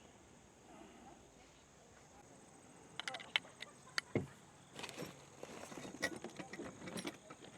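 Metal landing-gear hardware and tools clinking and rattling as they are handled, starting about three seconds in with a run of sharp clicks.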